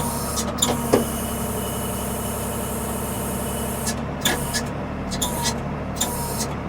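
Diesel engine of a 1975 Ford 550 backhoe running steadily as it digs, with a few sharp knocks and clanks, the loudest near the start and about four seconds in.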